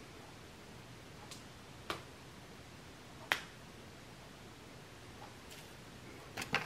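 A few isolated sharp clicks over a faint steady hiss, then a quick run of clicks and handling noise near the end as the hair extensions are picked up.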